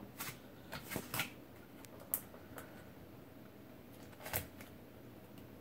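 Bare feet stepping onto a glass digital bathroom scale: a handful of soft taps and clicks in the first couple of seconds and one more about four seconds in.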